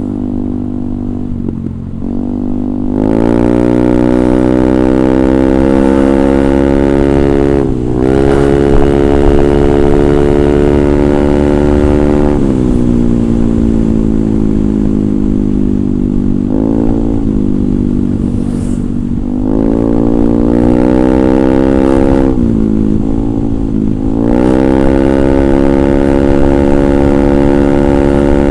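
Yamaha Aerox 155 scooter's single-cylinder engine running through a DSM Cobra aftermarket racing full-system exhaust, revved repeatedly. It climbs from a low idle about three seconds in, holds high revs, dips briefly a few times and is revved up again near the end.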